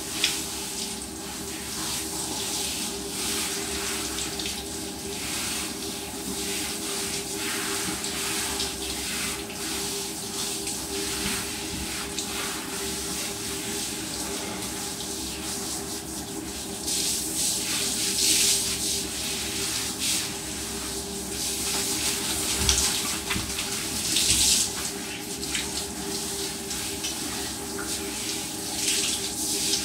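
Handheld shower hose running, spraying water onto a dog's wet coat and the tiled floor: a steady hiss that grows louder several times. A steady low hum runs underneath.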